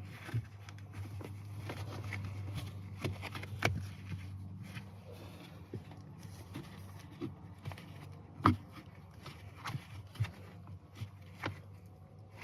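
Handling noise as a slip-on stainless steel pedal cover with a rubber gasket is pushed and wrapped onto a truck's gas pedal: scattered clicks, taps and rubbing, with the sharpest knock about eight and a half seconds in, over a steady low hum.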